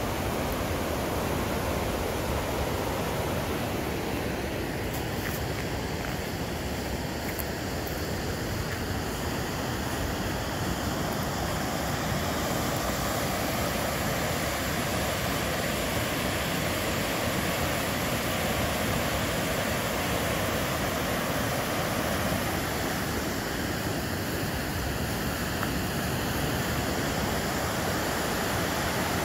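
Whitewater river rapids rushing, a steady, unbroken noise of churning water.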